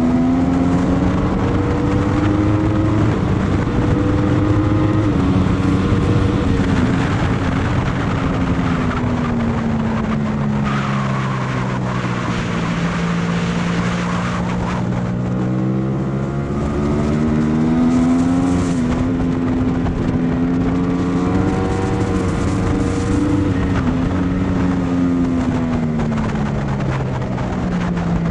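A racing engine heard on board at speed, its pitch rising and falling as it revs up and down through the corners. A rushing hiss joins between about 11 and 15 seconds in.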